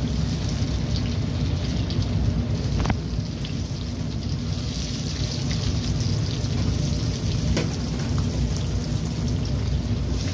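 Hot oil sizzling and crackling steadily as mash dal (urad dal) pakora batter deep-fries in a pan, with a few sharper pops.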